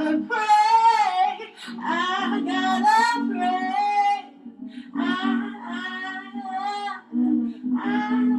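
A solo singer improvising melodic sung phrases into a handheld microphone, each phrase lasting a second or two with short breaks between. A lower held vocal part sits underneath, as from a loop pedal.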